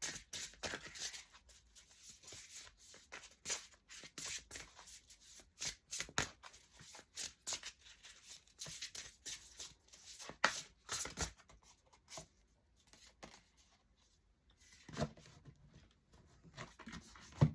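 A deck of oracle cards being shuffled and handled by hand: quick, irregular papery clicks and rustles that thin out after about twelve seconds.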